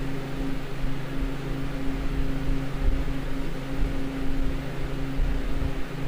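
Walk-in freezer's ceiling-mounted Bohn evaporator unit running, its fans blowing a steady airy hiss over a constant low hum.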